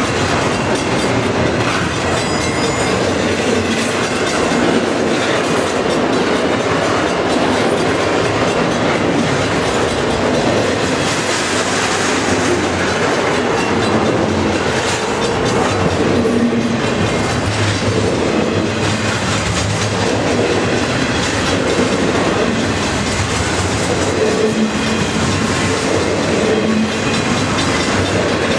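Double-stack intermodal container cars of a freight train rolling past close by: steel wheels on the rails making a steady, loud rolling noise.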